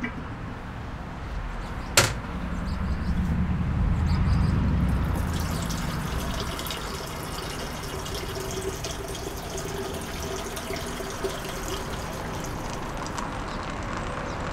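Water pouring in a steady stream into a ceramic mug, starting about five seconds in. Earlier there is a single sharp click followed by a low rumble for a few seconds.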